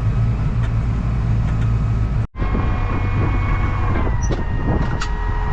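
A vehicle engine running steadily with a deep hum, cutting out for a moment about two seconds in, then running on with a few light knocks.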